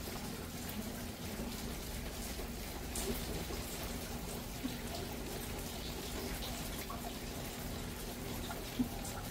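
Steady monsoon rain falling, with scattered drops tapping close by and a couple of sharper drips, one near the end, over a faint low steady hum.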